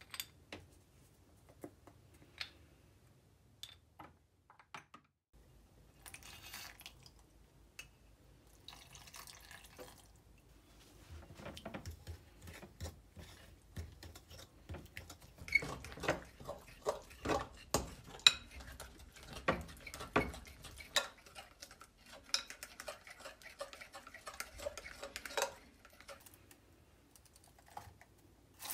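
Metal fork beating egg into flour in a glass bowl, its tines clicking rapidly against the glass for about fifteen seconds. Before that come only scattered small clicks and brief rustles.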